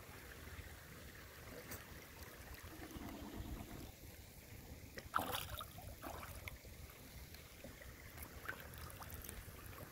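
Pond water lapping and trickling close to the microphone as domestic geese swim past, with one louder splash about five seconds in.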